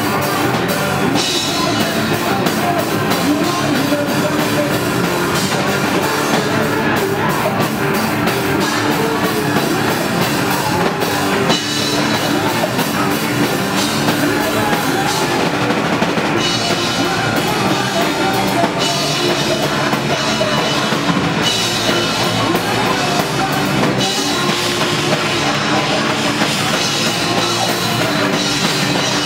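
Hardcore punk band playing live and loud: distorted electric guitars, bass guitar and a pounding drum kit.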